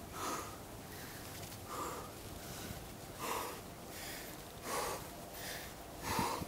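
A rock climber breathing hard with effort, five sharp exhales about every second and a half.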